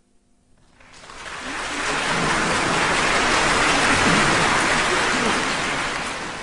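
Concert hall audience applauding, swelling in from near quiet about a second in to full, dense applause that holds and eases slightly near the end.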